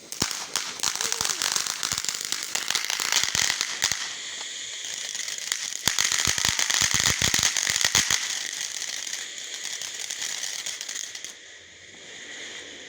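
A firework on the ground hissing and crackling, with dense runs of rapid pops for the first four seconds and again from about six to eight seconds in. The hiss drops away near the end.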